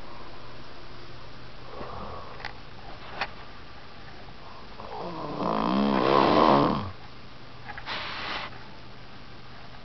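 A man snoring in his sleep: one loud snore lasting under two seconds about halfway through, then a shorter, softer breath about a second later. There is a fainter breath near the start.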